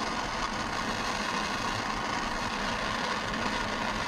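Handheld gas torch burning with a steady rushing hiss from its lit flame.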